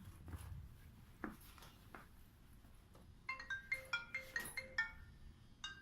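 A mobile phone ringtone playing a quick run of short, bright marimba-like notes over a low held tone, starting about three seconds in. A couple more notes follow near the end, and a few faint taps come before it.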